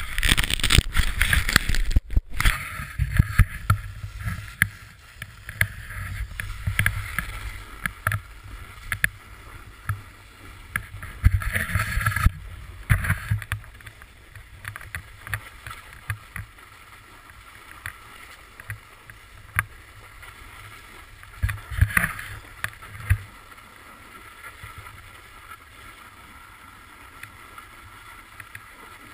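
Muffled wind and handling noise on a GoPro camera in its housing on a ski pole: frequent knocks and rubbing for the first dozen seconds or so, then a quieter steady rush with a few more knocks about three quarters of the way through.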